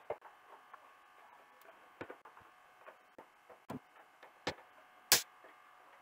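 A handful of sharp clicks and light knocks from a circuit board and parts being handled on a television's sheet-metal back chassis, the loudest about five seconds in, over a faint steady hum.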